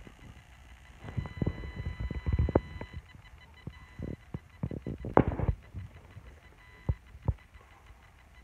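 Raccoon rooting about in a fluffy plush toy and bedding: soft low thumps and fabric rustling in irregular bunches, loudest about five seconds in, then two single thumps.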